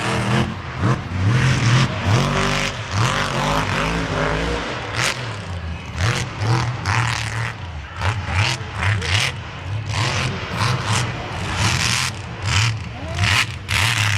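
Off-road vehicle engine revving up and down over and over, at mud-bogging speed, with voices in the background.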